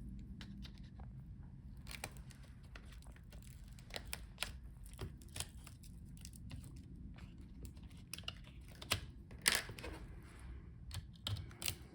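Faint scattered clicks and light taps of fingers and a tool on small plastic parts: the retaining clip of a laptop's flat-cable connector being flipped open and the cable pulled out, with a few sharper clicks about four and a half and nine seconds in.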